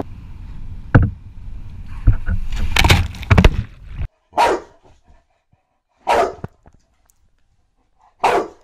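A boxer dog barks three times, about two seconds apart, at a feather on a cord. Before that comes a rushing wind-and-water noise with several loud thumps, which cuts off suddenly about four seconds in.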